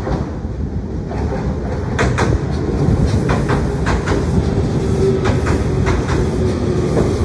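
Fukuoka City Subway 2000N series electric train pulling in alongside the platform: a rumble growing louder as the cars pass, with irregular clacks of the wheels over rail joints and a steady whine that comes in about halfway through as it slows.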